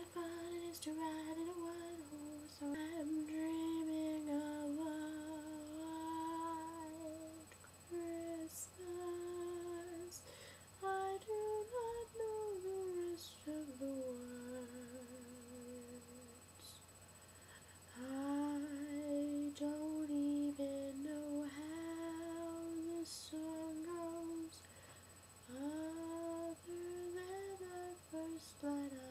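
A young woman humming a slow tune with her lips closed, in long held notes that step up and down, with short pauses between phrases. A faint steady electrical hum runs underneath.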